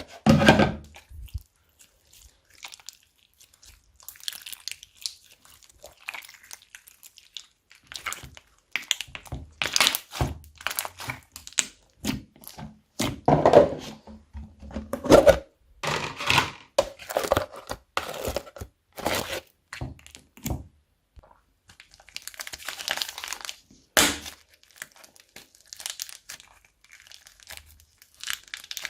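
Slime being squished and mixed by hand: irregular crackling, clicking and squelching in bursts with short pauses, and a squelch that bends in pitch about two-thirds of the way through.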